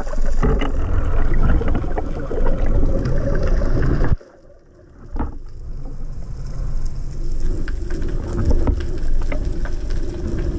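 Underwater noise picked up by a diving camera as the diver descends: a steady rush of water with crackling clicks. It cuts out abruptly about four seconds in and comes back about a second later.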